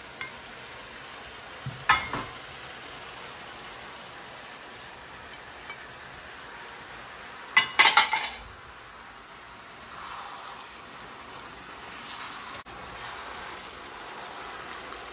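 Noodles with chicken and vegetables sizzling steadily in a hot oiled pan while they are stirred and tossed together. A utensil clinks against the pan about two seconds in, and again several times in quick succession around the middle.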